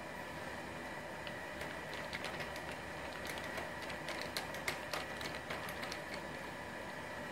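Hand screwdriver turning a small screw into the plastic reflector panel of a Ubiquiti LiteBeam AC Gen2 dish: a run of small, irregular clicks and ticks, densest in the middle, over a steady background hum.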